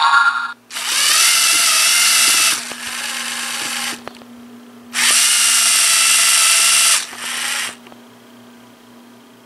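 A LEGO Mindstorms EV3 robot's electric drive motors whine as it drives out, then, after a pause about four seconds in, drives back. Each run starts with a loud whine and drops to a quieter one for its last second or so. A brief whine comes right at the start, and a faint steady hum runs underneath.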